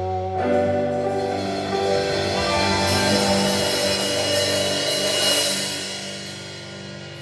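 A live rock band holding the song's final chord on electric and acoustic guitars, bass and keyboard, with the drummer washing the cymbals, then the sound fading out over the last couple of seconds.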